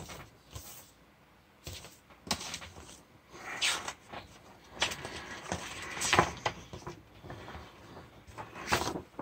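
Paper and cardboard rustling and sliding in short irregular bursts: a vinyl record jacket and its paper inserts being handled, and a folded poster pulled out.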